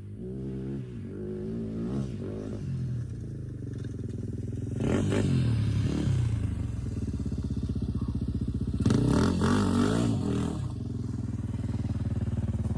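Dirt bike engine under way in sand, its pitch climbing and dropping with the throttle. It gets two louder bursts of throttle about five and nine seconds in, then settles to a steadier, lower run near the end.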